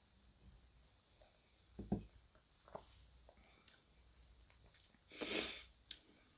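A whiskey glass set down on a wooden bar top with a single thump, followed by a light click. A few seconds later comes a short, breathy exhale of about half a second, taken while the whiskey is being tasted.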